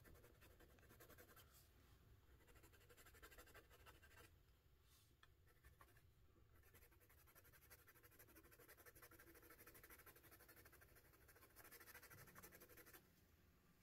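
Faint scratching of a soft-core colored pencil shading on paper, easing off for a couple of seconds about four seconds in.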